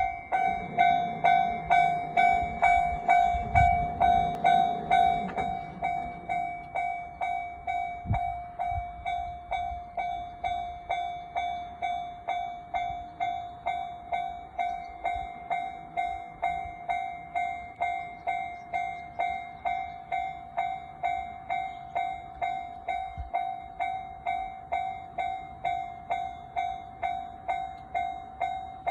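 Japanese railway level-crossing warning bell ringing in a steady, even pulse of about two strikes a second. A train rumbles past under it for the first several seconds.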